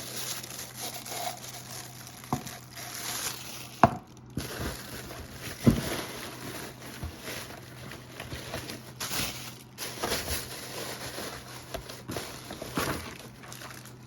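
Plastic packaging crinkling and rustling as the parts of a toothbrush holder are unpacked by hand, with a few sharp knocks along the way.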